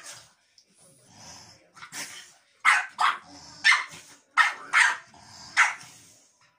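French bulldog barking in short, sharp barks, about seven of them from about two seconds in, some in quick pairs. It is pestering barking at another dog to provoke it.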